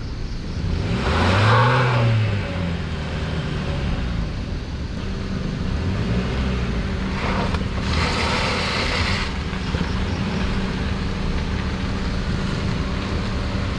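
Proton Exora MPV's engine running at low speed as it creeps along a dirt track, revving up and back down about a second in and again more gently about six seconds in. There are two short spells of rushing noise, the louder one early on with the first rev.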